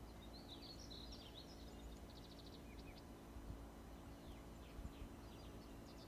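Faint birdsong: small birds chirping and twittering, with a quick trill about two seconds in and scattered short down-slurred chirps in the second half, over a low steady background rumble.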